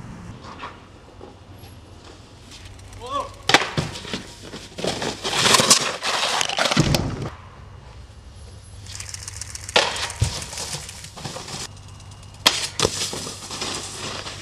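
Snowboards on handrails: sharp knocks as a board strikes a metal rail, a scraping slide lasting a couple of seconds, and later thuds of landings and falls in snow, with a brief shout.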